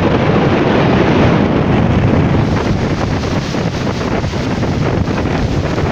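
Strong wind buffeting the microphone: a loud, steady rushing noise, deepest and heaviest in the low end.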